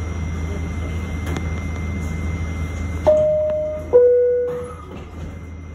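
Subway train humming steadily at a standstill, then the two-note door-closing chime about three seconds in: a held higher note followed by a lower one that fades, the signal that the doors are about to close.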